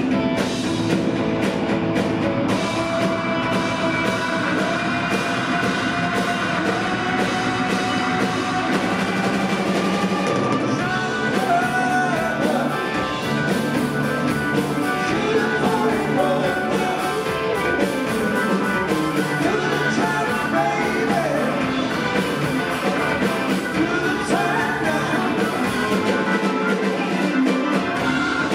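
Live rock band playing electric guitar, bass guitar, keyboard and drum kit, with a singer.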